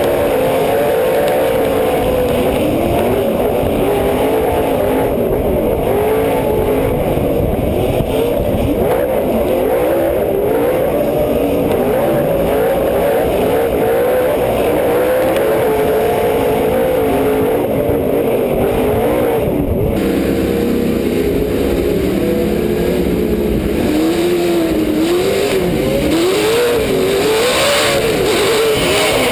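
Off-road race truck engine at racing speed, its revs climbing and dropping again and again as the driver works the throttle and gears, with tyre and dirt noise underneath.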